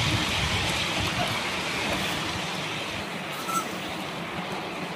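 Ride-on miniature railway train running along its track: a steady rumble and rushing noise of the wheels on the rails that grows gradually quieter.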